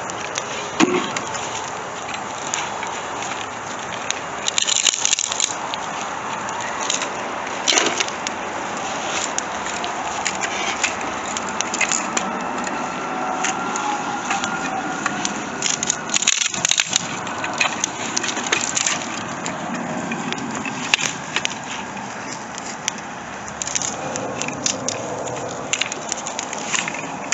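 Bonfire of wood and cardboard burning, a steady crackle with many sharp pops and cracks scattered throughout.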